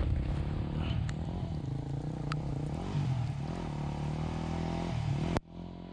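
Dual-sport motorcycle engine running, its pitch rising and falling with the throttle. The sound cuts off suddenly about five seconds in.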